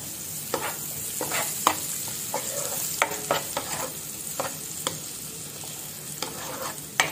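Minced garlic sizzling in melted butter in a nonstick frying pan, with a steady hiss. A spatula scrapes and taps irregularly against the pan as it is stirred, the loudest stroke near the end.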